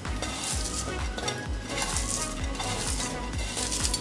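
Crisp fried onions crackling and rustling as fingers crush them on a steel plate, over background music with a steady low beat.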